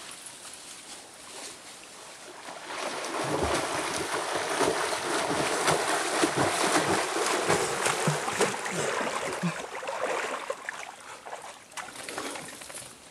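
A person swimming front crawl, arm strokes splashing loudly in the water. The splashing builds about three seconds in and dies away near the end.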